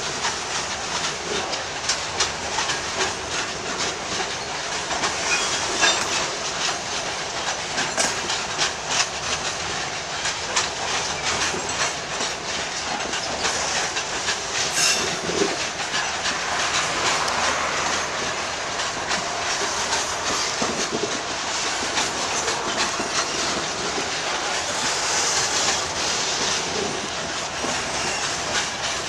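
Freight train of open-top hopper wagons rolling past close by, its wheels clacking over the rail joints in a continuous run of clicks and rattling.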